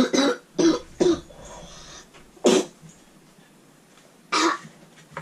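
A person coughing: five short coughs, three in quick succession, then one about two and a half seconds in and another near the end.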